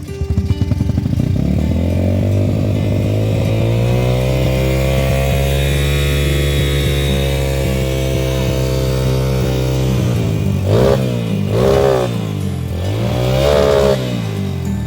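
Dirt-bike engines setting off: a rough low idle revs up in the first couple of seconds and holds a steady pitch, then the throttle is opened and closed several times near the end, the engine note rising and falling.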